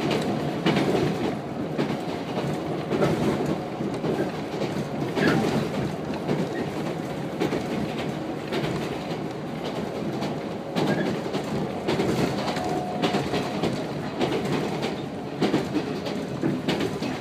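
JR 115 series electric train heard from inside the carriage as it runs along the line: a steady rumble of wheels and running gear, with wheel clacks over rail joints at uneven intervals.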